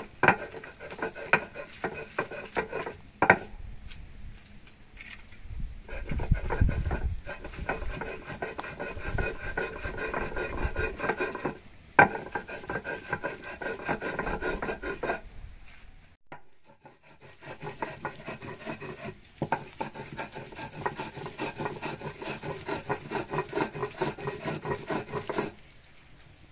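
Stone mano rubbed back and forth on a metate, grinding chile: a rhythmic gritty scraping of stone on stone. It stops briefly about twelve and sixteen seconds in and eases off near the end.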